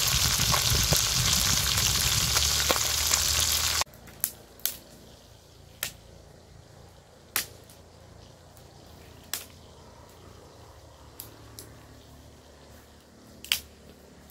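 Milkfish (bangus) frying in hot oil in a wok, a loud steady sizzle that cuts off abruptly about four seconds in. After that only a quiet background with a few sharp clicks.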